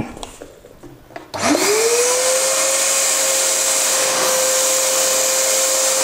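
TEXUM TVC-30 1800-watt wet and dry canister vacuum cleaner switched on with a click about a second in; its motor whines up to speed within about half a second, then runs at a steady pitch with a loud rush of air as the hose nozzle sucks up a pile of rice.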